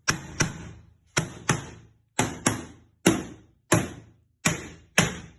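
A hammer striking steel, driving a mini crowbar in to loosen an iron angle bar from a wooden box. About ten sharp, very loud blows, some in quick pairs, each with a short metallic ring.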